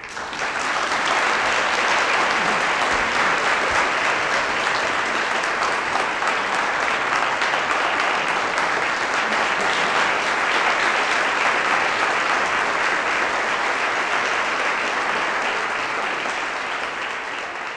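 Audience applauding steadily, a dense crowd of hand claps that begins to ease near the end.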